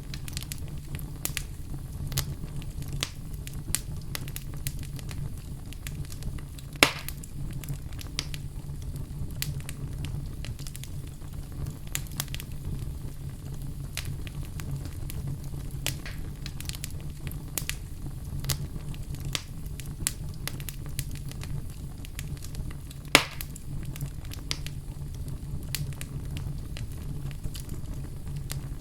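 Fire crackling in a fireplace: a steady low rumble of flames with constant small crackles, and two sharper, louder pops, about seven seconds in and again near the end.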